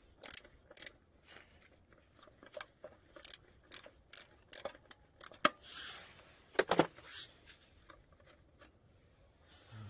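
Metal parts of a walk-behind tractor's accelerator linkage being handled by gloved hands: scattered clicks, taps and light rattles as a part is worked loose and pulled out, with brief rubbing of gloves. The sharpest clicks come about five and a half seconds in and as a quick pair shortly after.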